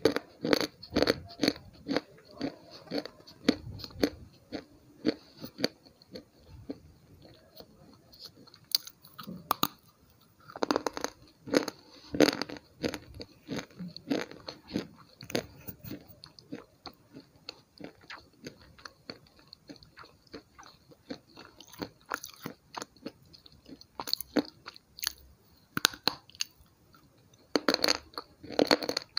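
Slate pencil bitten and chewed close to the microphone: irregular crisp crunches and snaps, with quieter stretches of chewing between, and clusters of louder bites near the start, about a third of the way in and near the end.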